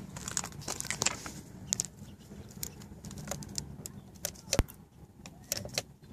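Light, scattered clicks and handling rustle as a finger presses the mode/trip button on a Buell Ulysses XB12X's instrument panel, with one sharper click about four and a half seconds in, over a faint low steady hum.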